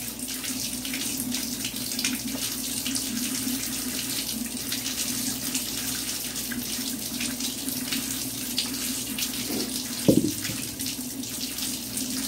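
Cold water running steadily from a kitchen tap into a bowl, filling it to soak peeled potatoes. A single short knock about ten seconds in.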